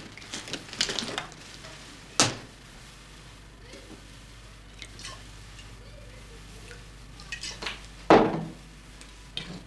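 Glasses and a glass bottle handled on a table: light clinks and ticks, one sharp click about two seconds in, and a louder knock near the end.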